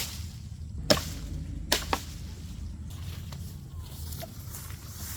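Four sharp knocks or chopping strikes in the first two seconds, the last two close together, over a steady low background rumble; then only faint small sounds.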